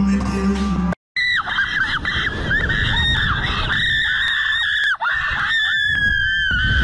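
A woman screaming in the shoulder harness of a slingshot amusement ride: one long high scream, held almost without a break, wavering and dipping, and sliding slightly lower in pitch near the end. Before it, for about the first second, music plays and then cuts off.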